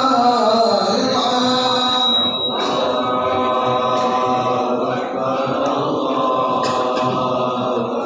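Men's voices chanting together in long, drawn-out melodic lines.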